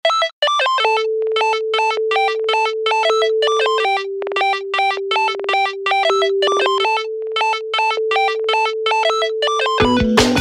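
Electronic synthesizer music: quick repeated synth notes over a held note that steps down and back up. A fuller beat with bass comes in near the end.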